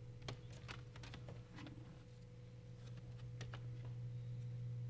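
Faint clicks and taps of a Lenovo IdeaPad 300's plastic palmrest top cover being handled and fitted onto the laptop chassis, hinge side first. The clicks are bunched in the first second and a half, with two more about three and a half seconds in, over a steady low hum.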